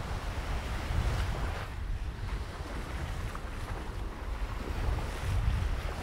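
Small waves breaking and washing up a sandy shore, the surf hiss swelling about a second in and then easing off, with wind rumbling on the microphone.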